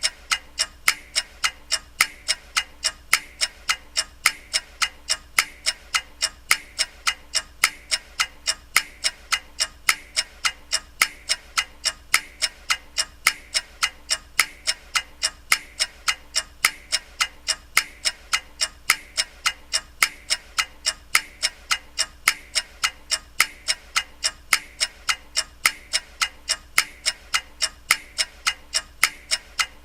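Clock ticking steadily, fast and even at about three ticks a second, with a faint low hum under it.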